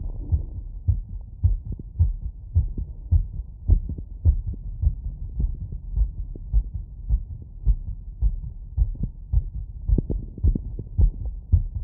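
A human heartbeat heard through a wireless stethoscope: steady, fast lub-dub thumps at about two beats a second, raised after a run.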